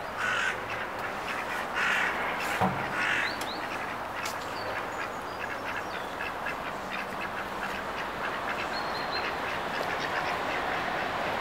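Duck drakes quacking, three calls in the first three seconds, then walking on over grass.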